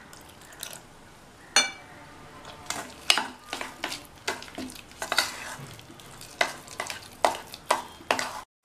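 A steel spoon stirring thick semolina batter in a stainless-steel bowl, scraping and clinking against the metal about twice a second. One clink about one and a half seconds in rings out briefly.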